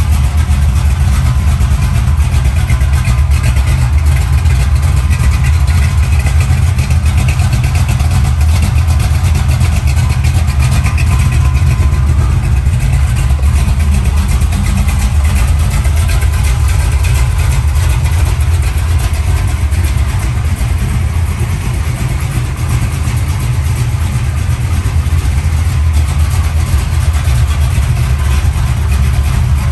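Chevrolet Nova's 383 V8 idling steadily, a loud, even low rumble from the exhaust.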